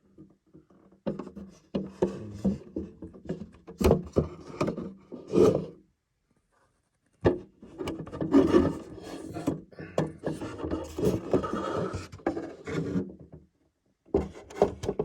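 Handling noise: a plastic popcorn container being turned and moved about, with rubbing, scraping and knocks in two stretches broken by about a second of dead silence.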